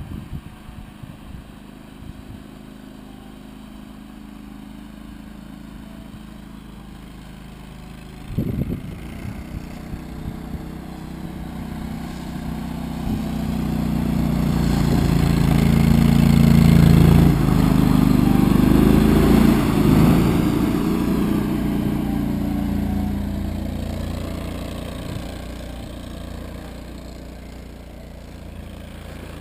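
Argo Avenger 750 8x8 amphibious ATV's V-twin engine running as the machine drives through snow, growing louder as it approaches to a peak about halfway through, then fading as it moves away. A single short knock about eight seconds in.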